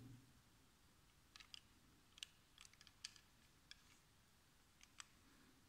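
Faint, scattered small clicks and taps, about a dozen over a few seconds, made by handling a small die-cast model car.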